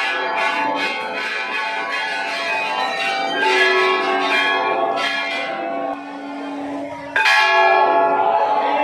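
Brass temple bells rung over and over during an aarti, their overlapping strikes making a dense, steady ringing. About seven seconds in, a sudden louder strike comes in.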